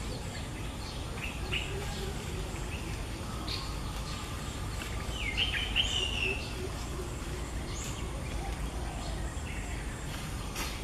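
Birds chirping sporadically in short high calls, with a louder burst of calls about five to six seconds in, over a steady low outdoor background noise.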